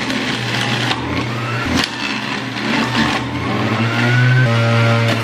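Oster centrifugal juicer's motor running loudly as it grinds cucumber and celery, a steady whine whose pitch sags and climbs as the produce is fed in, rising most clearly near the end.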